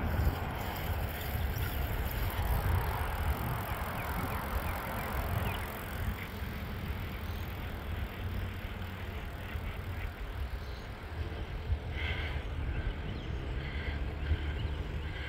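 Steady rumble of wind on the microphone and rolling noise of travel along a paved trail. Near the end a few short high chirps repeat over it.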